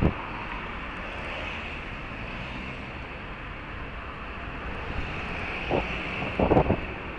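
Steady rush of road traffic and riding noise picked up by a bicycle-mounted camera, with wind on the microphone. Two short, louder bursts near the end.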